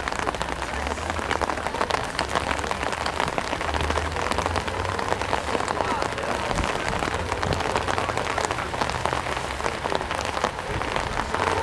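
Rain pattering steadily on a surface close to the microphone, a dense even crackle of drops.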